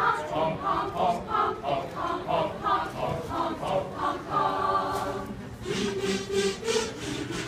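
Mixed choir singing a rapid run of short, repeated syllables, about three a second, that ends on a long held chord about four and a half seconds in. Softer sustained singing follows.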